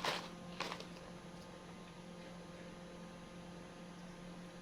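Steady low electrical hum with a faint even hiss, and two soft brief clicks or rustles in the first second.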